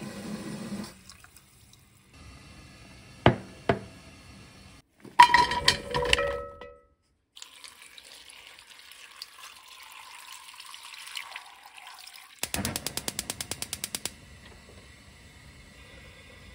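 Tap water runs into a glass measuring cup of rinsed rice, followed by a few sharp knocks and ringing clanks of a stainless steel pot. Water is then poured in a steady stream over cut pumpkin in the pot. Then comes a quick run of evenly spaced clicks, about nine a second for a second and a half, like a gas stove's igniter lighting the burner.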